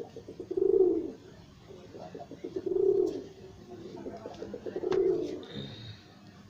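Domestic pigeons cooing: three coos about two seconds apart, each led in by a quick stuttering run of short notes.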